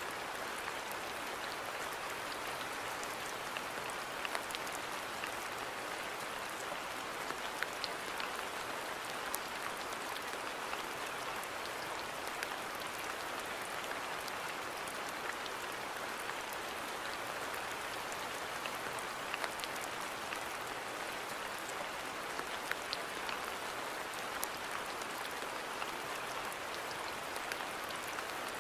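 Steady rain falling on a garden, an even hiss with many separate drops ticking sharply on surfaces.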